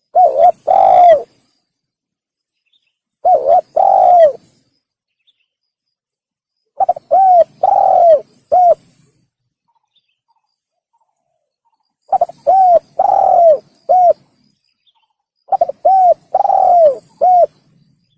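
Male spotted dove cooing: five phrases a few seconds apart, with silence between them. The first two phrases have two notes; the last three have four, with a longer third note.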